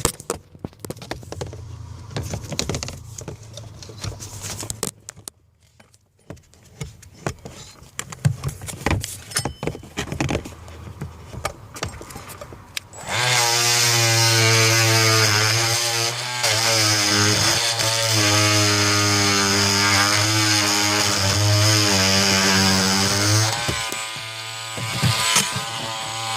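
Scattered clicks and knocks, then about halfway a loud, steady buzzing motor starts and runs with a slight waver, dropping off shortly before the end.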